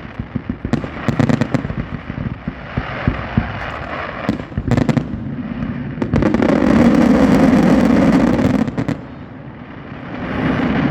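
Fireworks display: quick cracks and pops over the first couple of seconds, a sharp bang a little past four seconds, then a dense, loud barrage of crackling from about six to nine seconds. It dips briefly, then builds again near the end.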